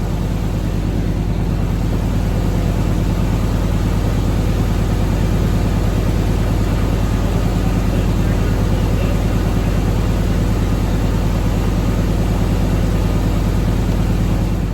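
Vehicle engine running steadily with an even low hum.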